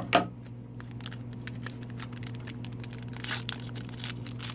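Hockey card pack wrapper being handled, torn and crinkled open: scattered crinkles and clicks, a short sharp sound just after the start that is the loudest moment, and a longer rip about three seconds in. A steady low hum sits underneath.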